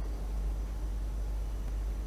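Steady low rumble and hiss of background noise, with no bird calls.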